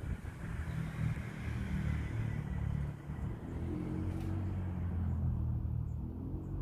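A motor vehicle engine running nearby, a steady low hum.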